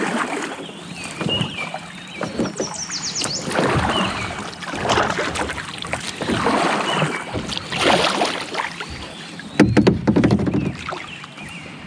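Kayak paddle strokes in river water, a splashing swish every one to two seconds, with small birds chirping. A quick run of sharp knocks about ten seconds in.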